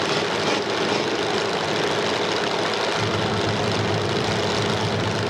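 Several full-size demolition derby cars' engines idling while the action is stopped, a steady mechanical din. About three seconds in, a deeper low rumble joins, as a nearer engine comes in.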